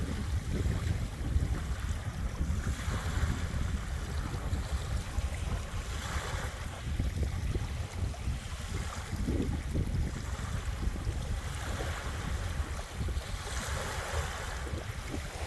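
Small waves washing gently onto a beach, a soft swell of hiss about every three seconds, over a steady low rumble of wind on the microphone.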